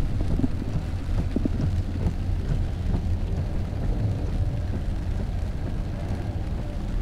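Cabin noise of a Jeep Compass driving on a wet road in heavy rain: a steady low rumble of tyres and running gear, with rain on the car.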